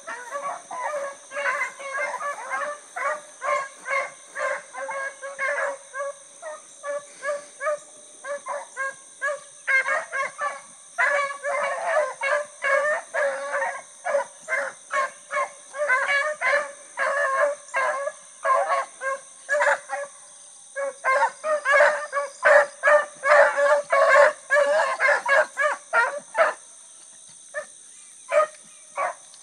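A small pack of beagles baying on a rabbit's track: many quick, overlapping chop barks, the pack in full cry. The cry thins out to a few scattered barks near the end.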